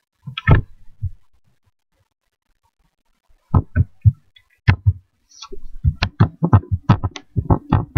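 Computer keyboard keys being typed one at a time, each a short thuddy tap: a couple of taps near the start, then a run of quick taps from about halfway through.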